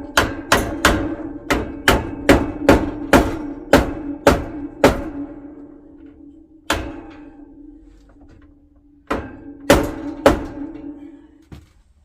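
Mallet knocking wire baskets into drilled holes in a wooden tool wall. A run of about fourteen sharp knocks, roughly three a second, then a single knock, and three more near the end. Each knock leaves a ringing tone in the board.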